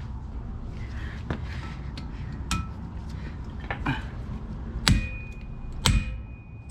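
Hammer blows on a hand impact driver, loosening the tight brake-rotor retaining screws on a Porsche 911 rear hub: several light taps, then two heavy ringing strikes about a second apart near the end.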